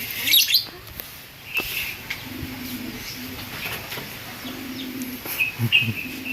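Birds calling: loud, sharp falling chirps near the start, and a low, steady cooing call that comes and goes.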